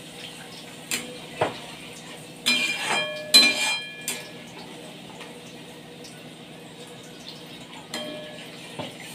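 Metal ladle clinking and scraping against a steel kadai while stirring curry gravy, with a string of sharp clinks in the first few seconds and two more near the end.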